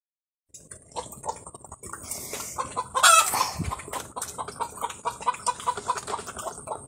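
Chickens clucking in a rapid run of short clucks, with one louder call about three seconds in.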